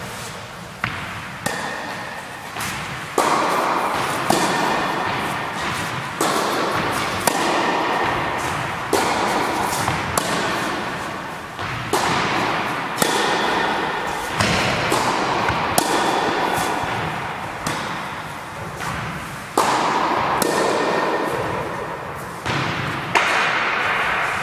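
Tennis balls struck with a racket and bouncing on a wooden gym floor: sharp pops every second or two, each echoing in the large hall.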